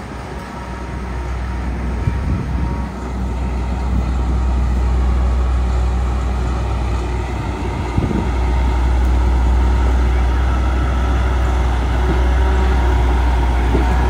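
Heavy diesel earthmoving machinery running with a deep, steady engine rumble that swells about three seconds in and again around eight seconds, with an occasional knock.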